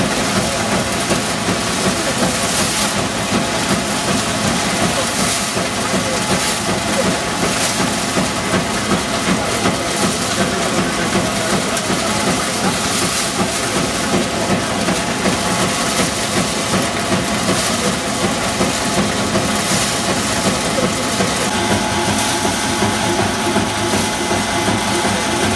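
Ajuria stationary threshing machine running steadily, driven by a Fordson Major tractor: a loud, dense mechanical hum and rattle with an even pulsing.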